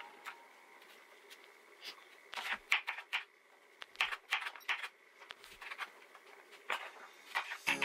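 Chef's knife chopping apple on a wooden cutting board: a quick run of sharp knocks about two and a half seconds in, then a few single chops spaced out. Background music comes in right at the end.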